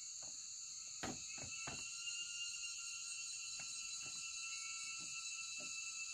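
Steady, high-pitched insect chorus. Several short knocks sound over it, the strongest three close together about a second in and softer ones after.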